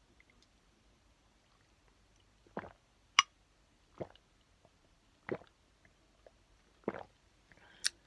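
A person's short, dry coughs or throat-clearing, about four of them a second or so apart from a dry throat, starting a couple of seconds in. Two sharp clicks fall among them, the loudest a little after three seconds in.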